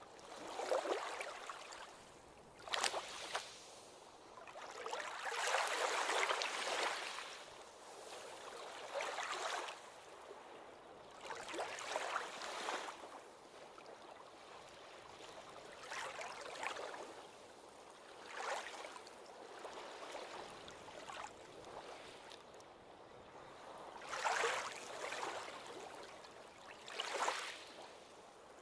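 Ocean waves washing onto a beach: the water swells and falls back every two to four seconds, with a softer hiss between surges.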